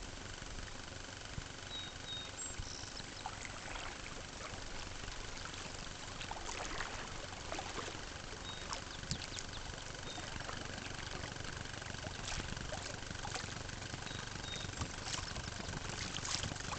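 River water lapping and splashing against a kayak's hull as it moves, with irregular small splashes and drips that grow more frequent about a third of the way in. A few faint high chirps come and go.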